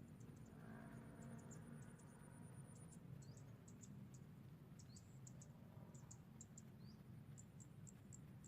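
Near silence outdoors, with faint, scattered high-pitched chirps and a thin, steady high whine that stops about three seconds in, typical of insects.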